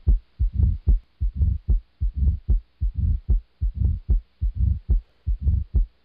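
Heart sounds heard through a stethoscope's bell over the mitral area: a steady rhythm of low beats, with a mid-diastolic murmur, the sign of mitral stenosis.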